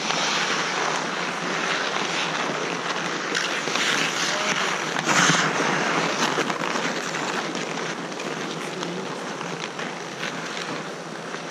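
Ice-hockey skates scraping and carving on outdoor ice, with scattered clacks of sticks and puck; loudest about five seconds in, as players skate right past.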